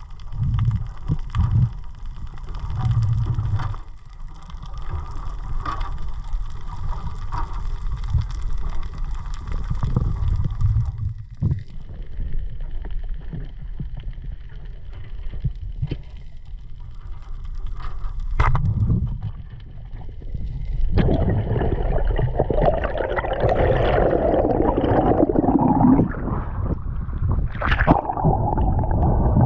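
Underwater sound as heard by a camera: a steady low rumble of water against the housing, with gurgling bubbles and scattered knocks. The gurgling grows louder and busier about two-thirds of the way through.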